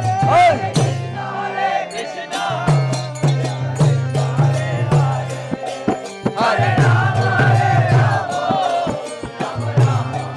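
Devotional kirtan: a group of voices chanting in call-and-response style with a mridanga drum beating and sharp percussive clicks.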